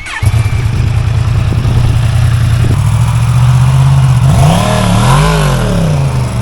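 Motorcycle engine that comes in suddenly and runs at a steady idle, then is revved twice near the end, its note rising and falling each time.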